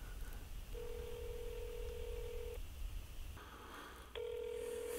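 Ringback tone of an outgoing phone call, heard through a smartphone's speaker: two steady rings, each about two seconds long, with a pause of about a second and a half between them.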